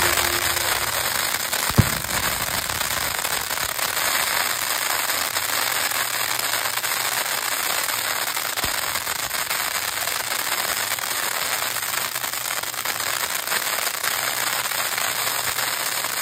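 Ground fountain fireworks spraying sparks with a steady, dense crackling hiss. One sharp bang stands out about two seconds in.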